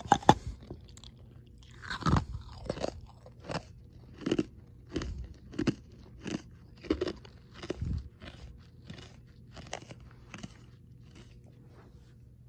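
Ice being bitten and chewed close to the microphone. It opens with one sharp, loud crack, then a steady run of crunches about every 0.7 seconds that turn fainter near the end.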